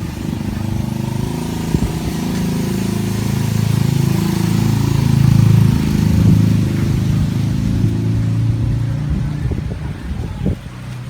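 A motor vehicle's engine running, growing louder to about the middle and then easing off, with a few sharp knocks near the end.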